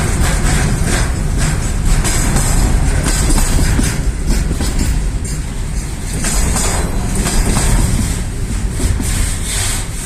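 Freight train wagons rolling on the rails, loud, their wheels clattering over the rail joints with a steady rumble and hiss.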